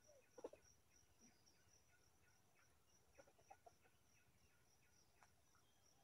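Faint, short clucks of red junglefowl: a few about half a second in and a small cluster around three seconds in, over a steady pulsing insect trill.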